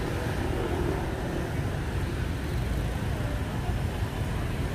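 City street traffic: a steady wash of motorbike and car noise, with faint voices of passers-by in the first second.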